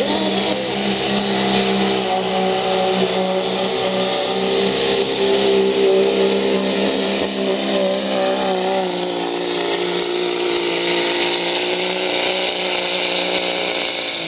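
Modified diesel pickup truck engine held at full throttle under heavy load as it drags a weight-transfer pulling sled, the note staying high and fairly steady with slight wavering.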